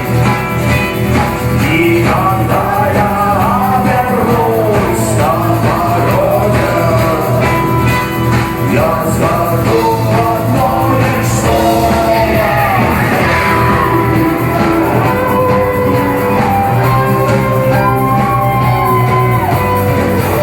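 Rock song with singing over the band.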